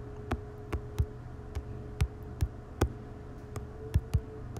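Typing on an iPad's on-screen keyboard: a run of short, sharp key clicks, two or three a second at an uneven pace.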